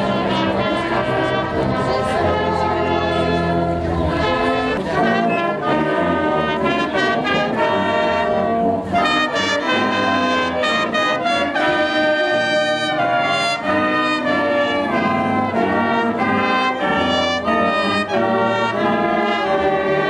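A community wind band of trumpets, saxophones, clarinets and a sousaphone playing Christmas music, with no pauses.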